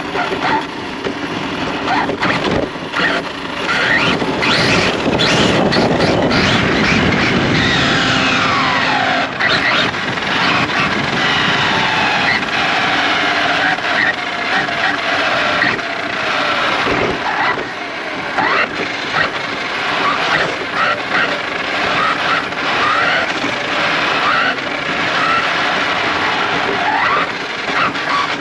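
Radio-controlled car's electric motor whining, its pitch rising and falling over and over as the car is driven hard.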